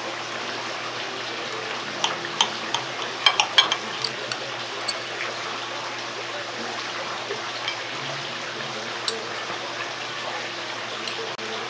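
Steel knife and fork clinking and scraping against a ceramic plate while a grilled ribeye is sliced, in clusters of short sharp clicks about two to four seconds in and a few more later. A steady background hiss runs underneath.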